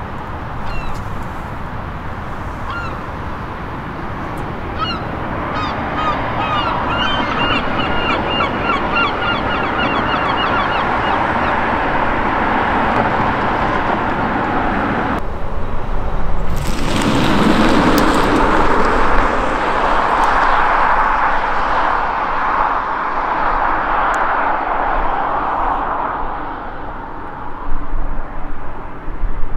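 An electric car driving past, with tyre and road noise swelling and fading away. Birds call repeatedly in the first half. The sound changes abruptly about halfway through.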